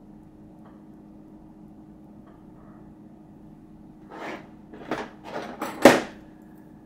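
Handling noise from fly-tying tools at the vise: four short rustling scrapes over about two seconds, the last and loudest ending in a sharp click, as the tier reaches for the whip-finish tool. Under them a faint steady hum.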